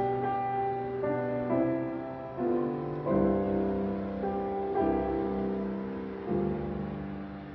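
Slow, quiet piano music: chords struck every one to two seconds, each held and slowly dying away.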